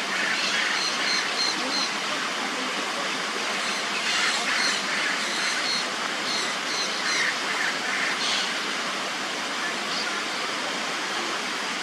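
Birds calling in several short bursts of quick, high, repeated notes over a steady rush of falling water.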